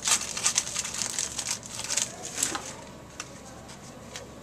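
Trading card pack wrapper being torn open and crinkled: a dense crackle for about two and a half seconds, then a few faint clicks.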